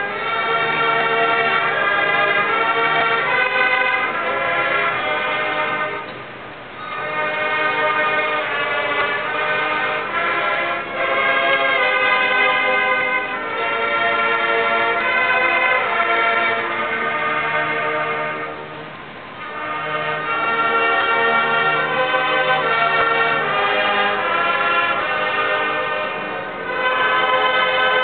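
A slow alma mater sung by massed voices in long held chords, with short breaks between phrases about a third of the way in, two-thirds of the way in and near the end.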